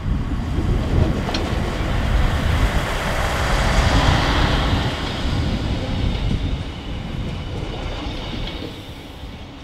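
Class 628 diesel multiple unit running past on the rails, with a rumble and wheel noise that is loudest about four seconds in and then fades away.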